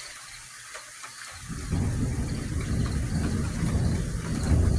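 Steady rain hiss, then about a second in a deep rumble of thunder starts suddenly and grows louder.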